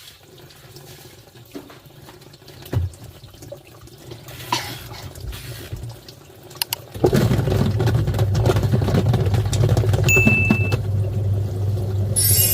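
Twin-tub washing machine: a few light clicks and knocks at first, then about halfway through the wash tub starts and its motor hums while the water churns loudly and steadily. A short high tone sounds briefly in the later part.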